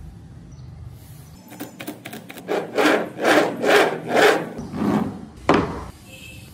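Carved wooden wheels of a wooden model car chassis rolling back and forth on a tabletop: a few light clicks, then about five loud rolling strokes a little over two a second, ending with a short sharp one.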